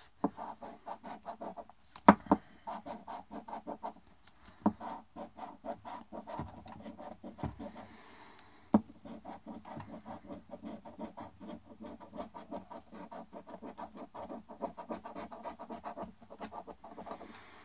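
A large coin scraping the coating off a scratch-off lottery ticket: rapid, repeated back-and-forth scratching strokes, with a sharper click about two seconds in and another about halfway through.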